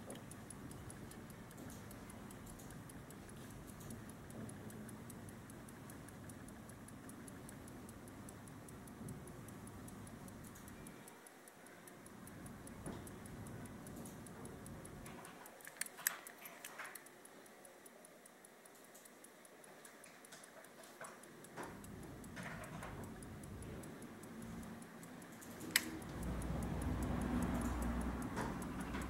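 Rapid, even ticking of a 1940s Alpina pocket watch's running movement, its back cover open. A few louder single clicks and a low rumble near the end come from the watch being handled.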